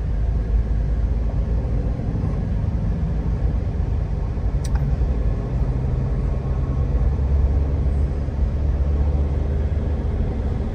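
Steady low rumble of a car's engine and road noise heard from inside the moving car, with one sharp click about four and a half seconds in.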